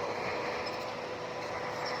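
Heavy earthmoving machinery running: a steady engine noise with a thin constant whine.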